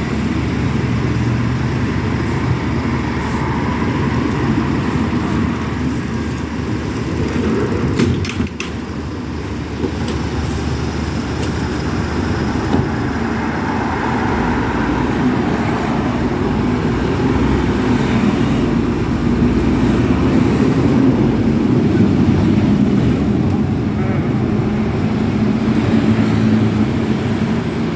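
A steady low rumble with indistinct voices murmuring underneath, and one sharp click about eight seconds in.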